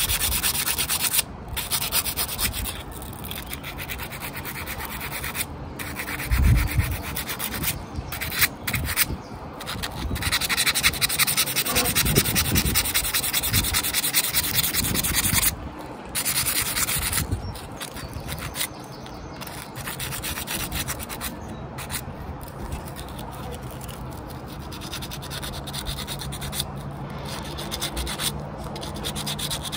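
Fine-grade sandpaper rubbed by hand over the metal body of a 1.6 HDi diesel fuel injector: a continuous scratchy rubbing that stops briefly now and then, loudest in the middle and softer toward the end. There is a dull bump about six seconds in.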